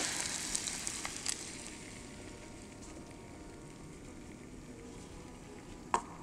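Beaten eggs poured into a hot camping pot of frying meat, sizzling loudly at first and dying down to a quieter steady sizzle within about two seconds, with a few light clicks.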